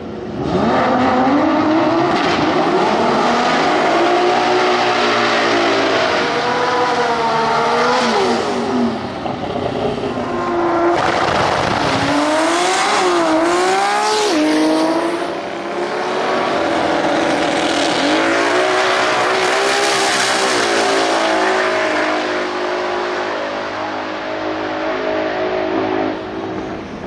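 Turbocharged Barra inline-six engine of a Ford XR6 drag car, revved hard up and down, then blipped rapidly on the start line, then held at full throttle as the car launches and runs down the strip.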